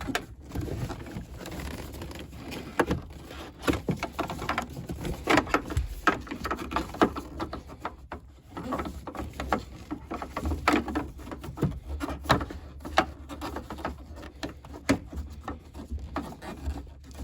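Hand-work on the rear seatbelt assembly and plastic interior trim: irregular clicks, knocks and rustling as the seatbelt and its retractor are worked loose and pulled out through a tight opening.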